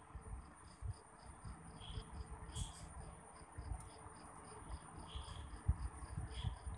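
Cricket chirping steadily in the background, a high pulsing trill of about four to five chirps a second. Faint irregular low knocks and thumps run under it, with one brief sharp click partway through.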